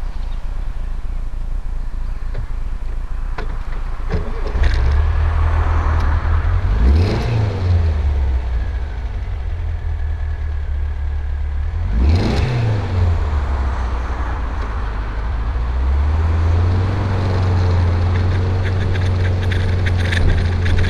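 Dune buggy engine running under way, heard from the open cockpit with road and wind noise. The engine note climbs about four seconds in, then twice rises and falls sharply in pitch, and settles at a higher steady note near the end.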